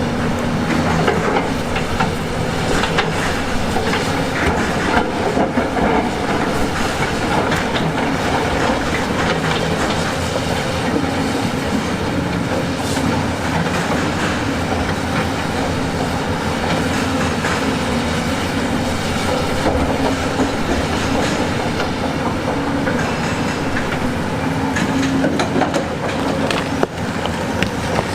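Heavy tracked earthmoving machine working over rock: its diesel engine runs steadily under a dense, continuous clanking and rattling of steel tracks and stone.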